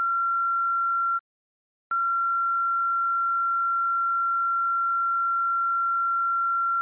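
A steady, high electronic tone held at one pitch. It breaks off abruptly about a second in, returns after a short silence, and cuts off sharply near the end.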